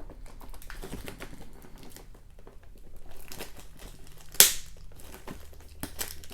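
Tough plastic shrink-wrap crinkling and crackling as it is torn off a boxed collector's set, with one sharp, loud crackle about four and a half seconds in.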